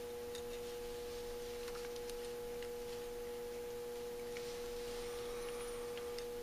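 A steady hum, one clear tone with fainter ones around it, under a few faint light clicks of small metal parts being fitted by hand into a Holley 4000 carburetor's choke housing.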